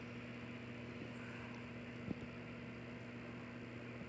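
A steady low electrical hum, with one faint tap about two seconds in.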